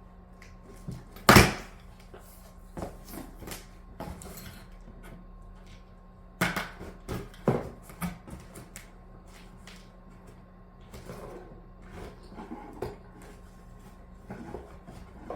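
Cardboard shipping box being handled: a sharp knock about a second in, then scattered taps, scrapes and rustles.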